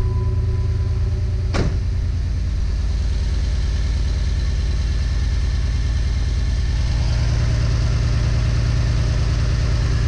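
2008 Jeep Wrangler's 3.8-litre V6 idling steadily while misfiring on cylinders 2 and 5, the fault traced to a bad ignition-coil-2 driver in the engine computer. One sharp click sounds about one and a half seconds in.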